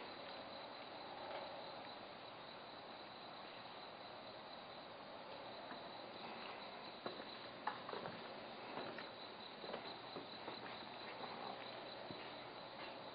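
Faint crickets chirping steadily in the night air, with a few soft clicks about seven and eight seconds in.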